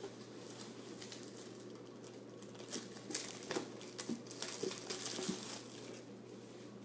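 Plastic wrapping and packaging of a trading-card box crinkling and rustling as it is handled, with scattered light clicks and taps, most around the middle. A faint steady hum lies underneath.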